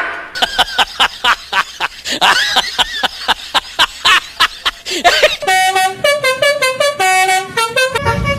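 A rapid run of mechanical clicks and clanks with a few whooshing sweeps, lasting about five seconds. It is followed by a multi-tone telolet bus horn playing a short tune in stepped notes.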